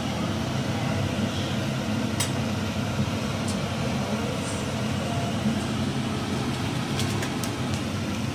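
Noisy kitchen range hood exhaust fan running with a steady whir, with a few sharp clicks of a knife against a wooden cutting board.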